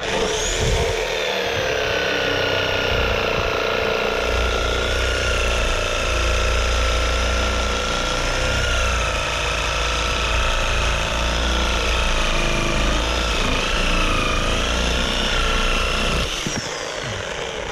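Chicago Electric corded reciprocating saw cutting through an old weathered wooden board, running steadily with a whine whose pitch wavers a little as the blade bites. It stops near the end.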